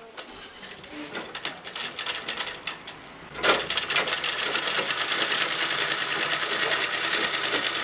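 Sewing machine stitching cloth: a few scattered clicks at first, then about three and a half seconds in it starts running steadily at speed with a fast, even rattle.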